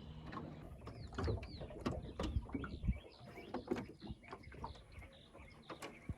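Birds chirping in short calls over a run of scattered clicks and knocks.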